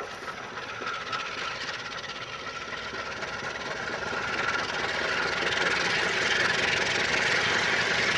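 Diesel-electric freight locomotives, a GE U20C leading two GE U15Cs, approaching head-on. The engines' running grows steadily louder as they near.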